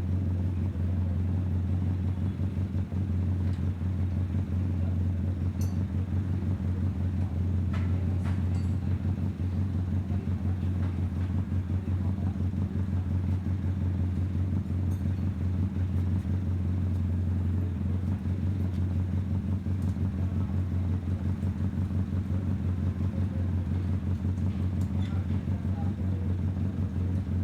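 Bajaj CT100 motorcycle's single-cylinder four-stroke engine idling steadily, freshly overhauled and reassembled.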